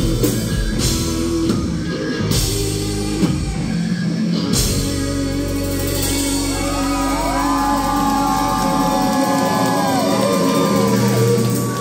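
Live rock band with electric guitars, bass guitar and drum kit playing the closing bars of a song, then letting a final chord ring out from about four and a half seconds in. Audience whoops and shouts rise over the held chord in the second half.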